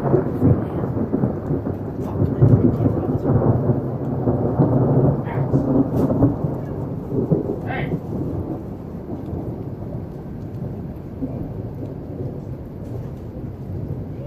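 A thunderclap breaking suddenly, then rolling on, loudest a couple of seconds in and slowly fading over the next ten seconds, with steady rain falling under it.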